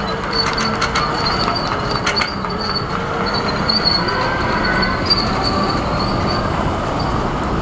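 Miniature ride-on tram train running on its small-gauge track: a steady rolling rumble with a thin, high wheel squeal. A quick run of clicks comes in the first couple of seconds.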